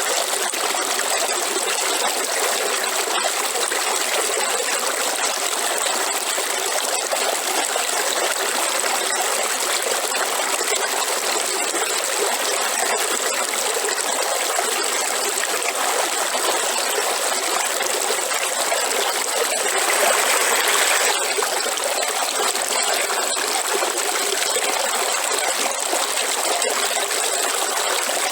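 River water flowing and trickling over rocks in a steady rush, swelling briefly about two-thirds of the way through.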